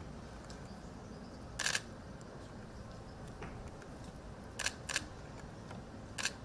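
Camera shutters clicking: one click under two seconds in, a quick pair about two-thirds of the way through, and one more near the end, over a low steady background rumble.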